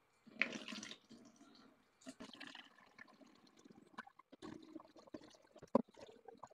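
Distilled water poured from a plastic gallon jug through a funnel into a CW-3000 spindle chiller's coolant tank, filling it. The splashing is uneven and loudest as the pour starts, about half a second in.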